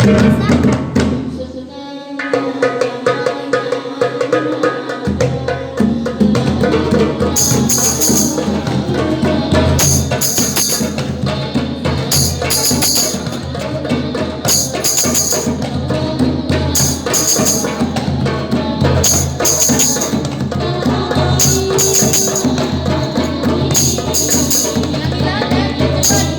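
Music with drums and jingling tambourine-like strokes and voices over it; from about seven seconds in the jingles come in pairs, the pair repeating every couple of seconds.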